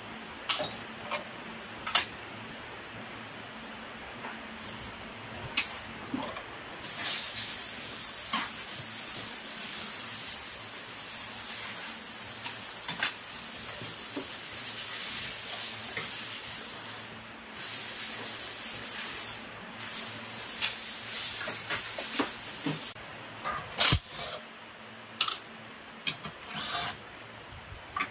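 A long spraying hiss, mostly high-pitched, runs for about sixteen seconds with two short breaks. A few sharp clicks and knocks come before and after it.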